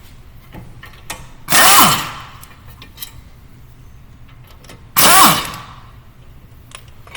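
Half-inch-drive pneumatic impact wrench with an 18 mm socket on a swivel extension, run in two short bursts about three seconds apart to back out the brake caliper bolts. Each burst ends in a falling whine as the tool spins down.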